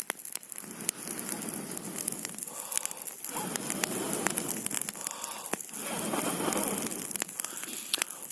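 A campfire being blown on in long, steady blows, three in a row of two to three seconds each, feeding the flames with air, while the burning wood crackles and pops throughout.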